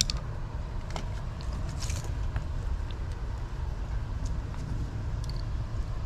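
Steady low outdoor background rumble with a few faint clicks and rustles from hand tools and wires being handled.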